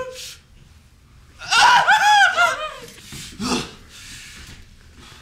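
A person laughing: a loud run of high-pitched giggles about one and a half seconds in, then a shorter burst about a second later.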